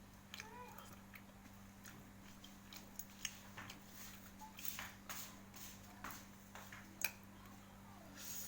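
Close-up eating sounds of chicken curry noodles being chewed: soft wet smacks and scattered small clicks, with two sharper clicks about three and seven seconds in, over a steady low hum.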